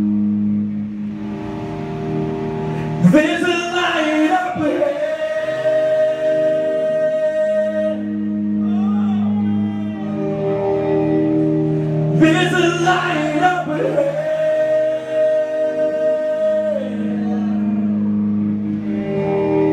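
Live rock band playing slow, held chords, with a male voice singing two long phrases, about three and twelve seconds in.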